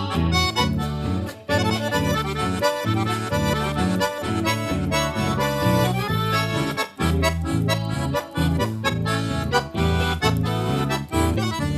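Gaúcho band playing an instrumental introduction: accordion carrying the melody over guitar and a steady, rhythmic bass line.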